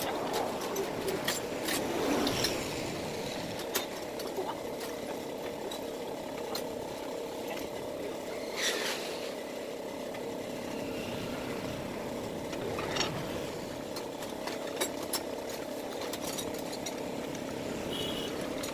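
Scattered clicks and knocks of metal drill-press parts being handled and fitted together, with a brief rustle of plastic wrapping about halfway through, over a steady background drone.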